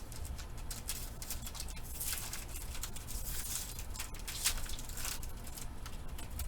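A trading-card pack being torn open by hand and the cards handled, with crinkling, rustling and small crackles and swishes, over a steady low hum.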